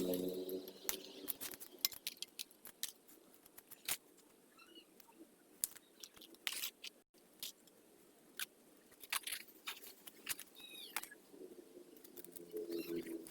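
Scattered light clicks and taps, with a few faint bird chirps. A pigeon coos briefly at the start and starts cooing again near the end.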